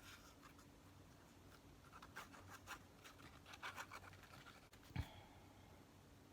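Faint scratching and rubbing of paper being handled and pressed down, with a single light tap about five seconds in.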